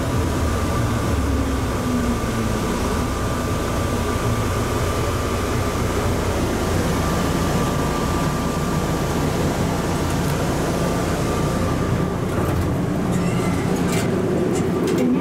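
Automated people mover train running through its tunnel, heard from inside the car: a steady rumble with a thin, high, steady whine. The whine fades about twelve seconds in as the train comes to a stop, and a few sharp clicks follow near the end.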